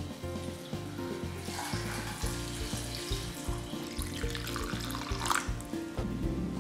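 Water poured from a glass jug into a stainless steel pot of cubed potatoes, splashing and trickling, loudest near the end. Background music plays underneath.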